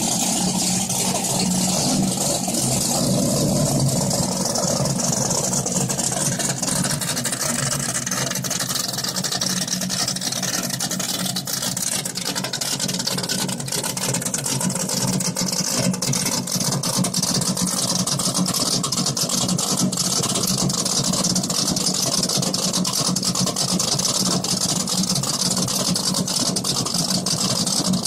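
1969 Chevrolet Camaro Z28 race car's V8 idling steadily through its exhaust.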